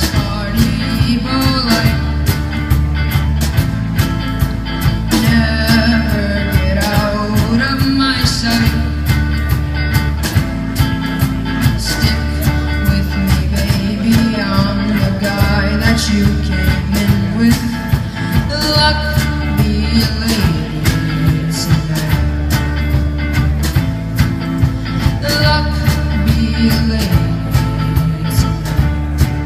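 Rock band playing live on stage: drums keeping a steady beat under electric bass and guitar, with a vocalist singing at the microphone.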